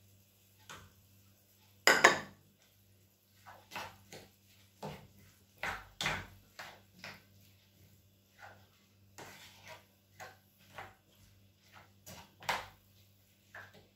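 Spatula knocking and scraping against a frying pan while stirring chili: short, irregular taps one or two a second, with a louder knock about two seconds in.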